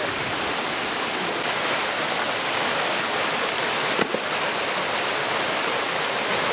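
Steady rushing of creek water tumbling over rocks and falls, with one brief knock about four seconds in.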